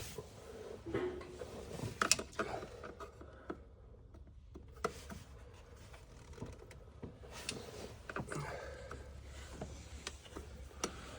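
Scattered light clicks and rattles of plastic connectors, clips and hand tools as parts are unplugged and pried loose from an engine's upper intake manifold.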